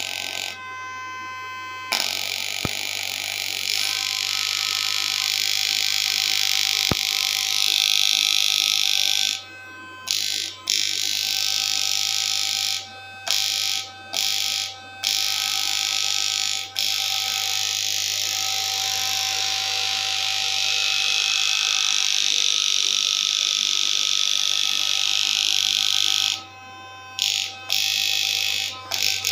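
Homemade 3000-watt fish shocker running: a loud electrical buzz and hiss over a steady low hum. It cuts out briefly several times, around ten seconds in, a few times between thirteen and seventeen seconds, and again near the end.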